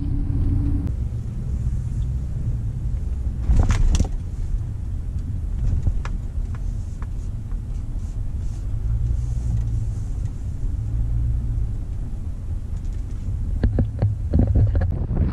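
Steady low rumble of a vehicle's engine and tyres heard from inside the cab while driving. There is a sharp knock about four seconds in, and a scatter of clicks and knocks near the end as the vehicle pulls up.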